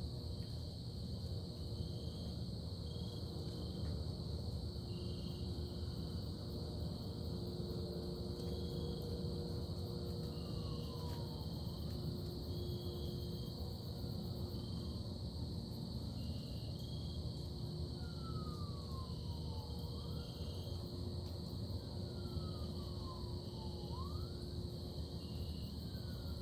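Night ambience of crickets trilling steadily over a low constant hum. From about ten seconds in, a series of faint falling whistles, each about a second long, a couple ending in a quick upward flick.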